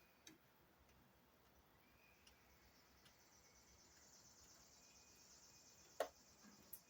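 Faint, high-pitched chirring of insects such as crickets, with a few short sharp clicks; the loudest click comes about six seconds in.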